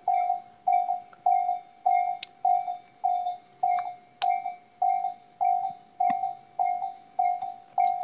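Japanese railway level-crossing alarm dinging in an even rhythm, a little under two rings a second: the signal that the crossing is closed for a train.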